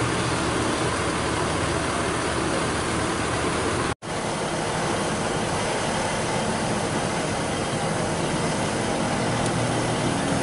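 Mercedes-Benz OH 1526 bus engine idling steadily with a broad hiss over it; the sound drops out for an instant about four seconds in, then carries on the same.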